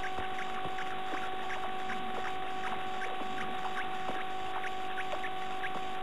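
Steady electrical hum and hiss from a nest-box camera's audio, with short falling squeaks several times a second and scattered soft clicks.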